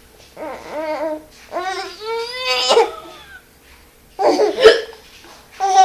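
A baby babbling and squealing in short bursts that rise and fall in pitch. About four seconds in comes a sudden loud burst: a woman's hiccup with the baby's voice.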